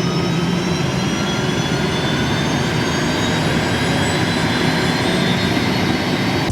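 Helicopter turbine engine running: a steady rush of noise with a faint high whine.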